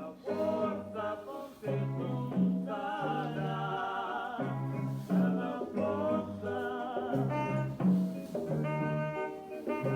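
Background music: a jazzy song with singing over a repeating bass line.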